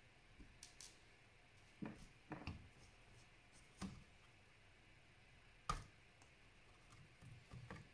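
Faint, scattered clicks and light knocks of small plastic and metal laptop parts and tools being handled, with the sharpest click about two thirds of the way in.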